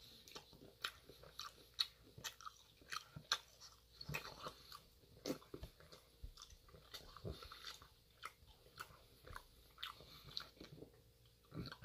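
Faint close-up chewing of steak and pan-fried potatoes: irregular wet clicks and smacks of a mouth eating.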